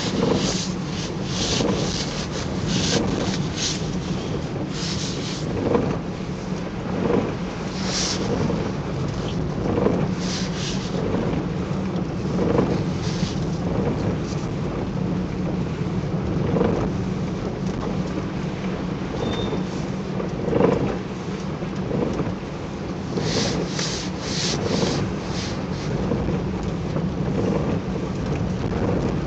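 Steady drone of a car cabin on the road, with the shiny rain suit's fabric rustling and crinkling in irregular bursts as the wearer moves against the seatbelt and seat.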